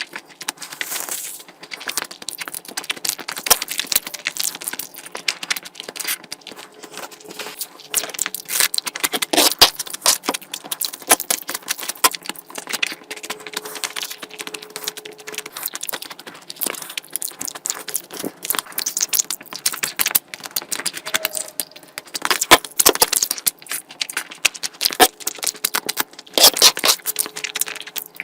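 Close-miked eating: chewing with a constant run of sharp wet clicks, smacks and crunches, as from meat curry and bones being eaten.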